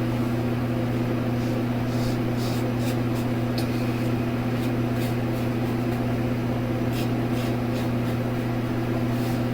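Gem push-button single-edge safety razor scraping through lathered stubble in short strokes, faint over a steady low electrical hum.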